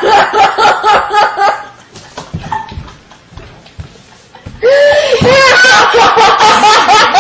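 Girls laughing: a quick run of laughter at the start, a quieter stretch in the middle, then loud, hard laughter with rapid repeated bursts from about two-thirds of the way in.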